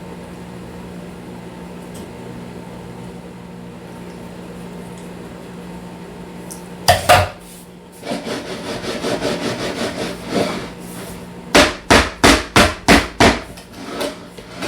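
Metal bundt pan being shaken and knocked against a counter to work melted butter down through the biscuits: two loud knocks about halfway through, some rattling, then a quick run of about six knocks. A steady low hum runs underneath.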